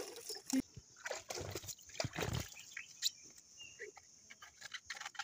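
Water splashing and sloshing as a small child is washed from a plastic basin, in a few irregular splashes.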